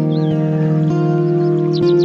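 Calm new-age background music of sustained, held chords, with the chord shifting about a second in and a short bird-like chirp just after the start.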